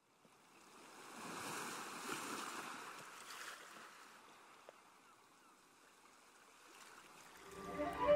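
Ocean surf washing onto a sandy beach, a soft hiss that swells over the first few seconds and then dies away. Near the end, music with strings fades in.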